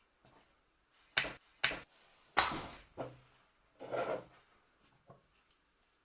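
Handling noises in a small room: two sharp clicks about a second in, then a louder clatter that dies away, a knock, and another brief clatter about four seconds in.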